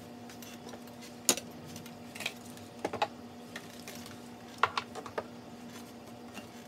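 Glass candle jars and their metal lids being handled and set down: scattered sharp clicks, clinks and knocks, the loudest about a second in and a cluster near the middle, over a faint steady hum.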